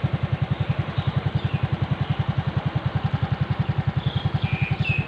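Motorcycle engine idling steadily, a regular low pulse of about ten beats a second. A few short high chirps come in about four seconds in.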